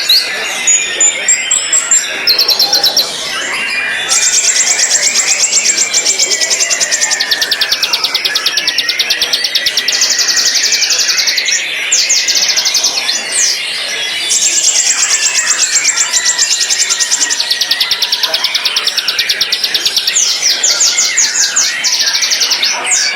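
White-rumped shama (murai batu) singing: varied whistled phrases under long runs of rapid, evenly repeated high notes, each run lasting a few seconds before breaking off and starting again.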